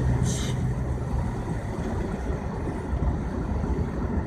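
Car driving at highway speed on a snowy road, heard from inside the cabin: a steady low rumble of engine and tyres, with a steady hum that fades out after about a second and a half. There is a brief hiss about a third of a second in.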